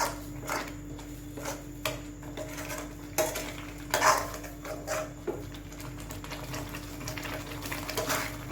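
A metal spoon clinking and scraping against a cooking pot of curry, a dozen or so irregular knocks, over a steady low hum.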